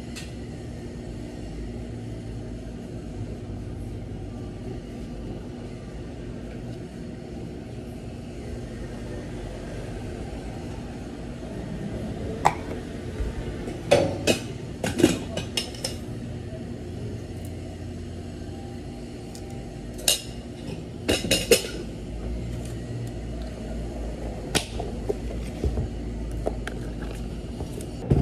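Steady low hum of cafe machines with scattered sharp clicks and knocks from a barista handling a plastic drink cup, dome lid and topping containers on a stainless counter, in two busy clusters around the middle and about two-thirds through.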